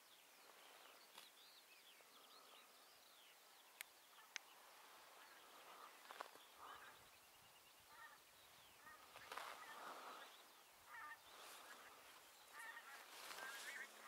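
Faint honking of a distant flock of wild geese, many short calls overlapping, thickening and getting a little louder in the second half. Two small clicks near the fourth second.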